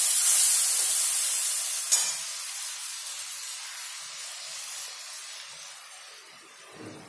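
Onion, ginger-garlic and spice paste sizzling in a hot kadai after a splash of water, a loud hiss that dies away steadily over several seconds. A single sharp tap about two seconds in.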